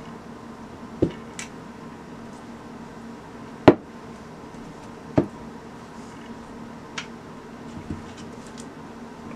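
Marble rolling pin rolling dough on a marble countertop, knocking against the stone five times, the loudest about three and a half seconds in.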